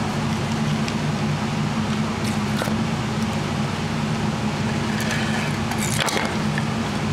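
Steady low machine drone of workshop equipment, with a few light taps and scrapes as cut wooden parts are handled on the router bed.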